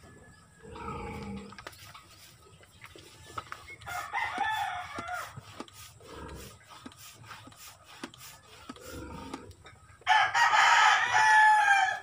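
A rooster crowing twice: a shorter, fainter crow about four seconds in, then a long, loud crow over the last two seconds.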